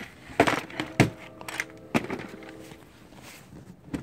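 Hand tools clattering and knocking as they are handled in a tool case while he looks for a wire splicer, with the sharpest knock about a second in.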